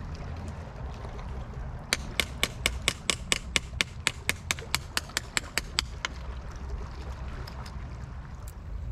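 A quick run of sharp taps, about five a second for some four seconds starting about two seconds in, as a metal-headed hand tool chips at oyster shells on a rock. Low wind and surf rumble underneath.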